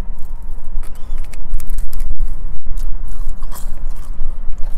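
A person chewing and biting french fries, with many small irregular clicks over a steady low rumble.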